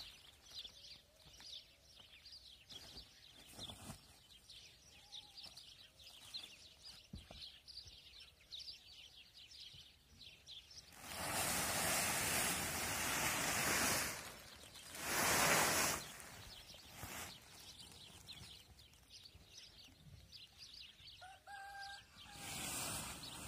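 Village ambience with small birds chirping steadily. Two loud bursts of rushing noise come about halfway through, and a rooster gives a brief crow near the end.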